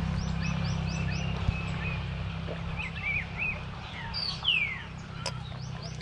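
Wild birds calling: a quick run of short, high rising chirps, a few twittering notes, and one long falling whistle about four and a half seconds in, over a steady low hum.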